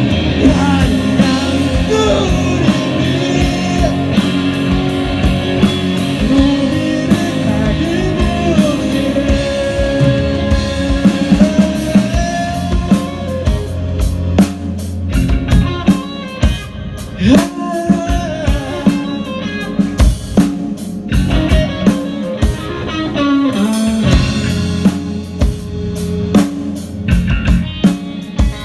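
Rock band playing an instrumental passage of a song: a lead guitar line over bass and a drum kit, with the drum hits growing sharper and more prominent about halfway through.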